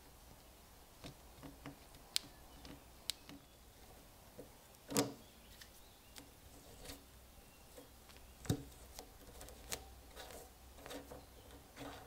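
Small metal clicks and light scraping as the rusty parts of an old trench lighter are handled and a threaded tube is unscrewed, with two louder knocks, one near the middle and one later.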